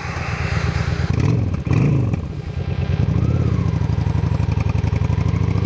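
Heavy motorcycle engine running, revved up briefly twice about a second in and then held steady as the bike moves off through soft sand.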